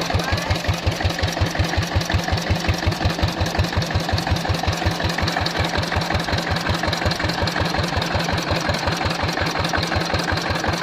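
A kelotok river boat's single-cylinder diesel engine running steadily at low speed, with an even beat of about five pulses a second.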